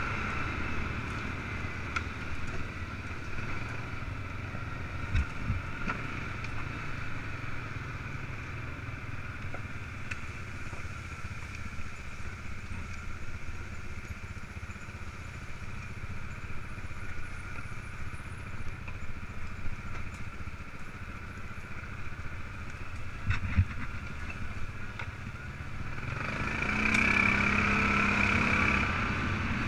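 ATV engine running steadily while riding over a bumpy dirt trail, with a few sharp knocks from the machine going over bumps. Near the end the engine revs up and gets louder.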